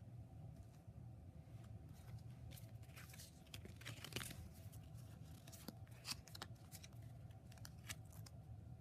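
Pokémon trading card booster pack's foil wrapper being torn open and crinkled by hand: faint, scattered crackles and tearing.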